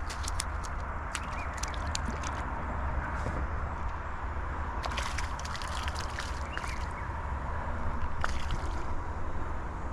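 Water sloshing at the canal's edge, with scattered sharp clicks and crackles in three short clusters: in the first two seconds or so, about five seconds in, and near the end.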